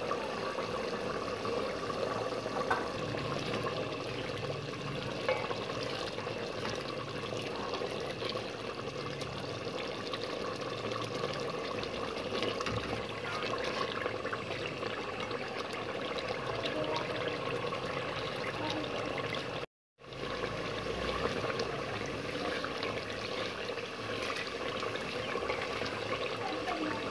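Beef curry simmering and bubbling in an aluminium pot as a wooden spoon stirs it, with a few light knocks of the spoon against the pot. The sound cuts out for a moment about twenty seconds in.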